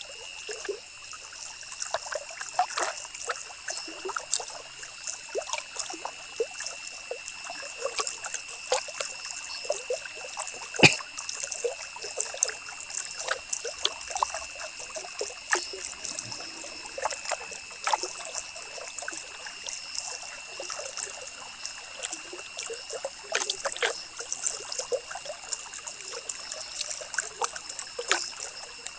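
Ballpoint pen scratching on paper in many quick, irregular short strokes while hatching, over a steady high-pitched electronic whine. One sharper click comes about eleven seconds in.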